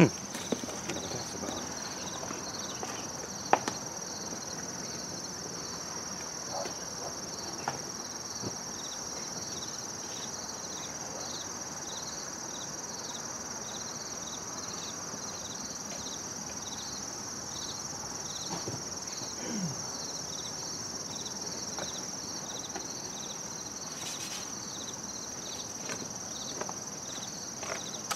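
Insects chirping: a steady high buzz with a short chirp repeating about twice a second, and a few faint clicks now and then.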